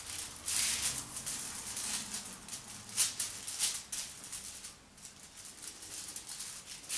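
Wooden stick scraping and rustling across aluminium foil as two-part epoxy is mixed by spreading, in repeated uneven strokes, the sharpest about three seconds in.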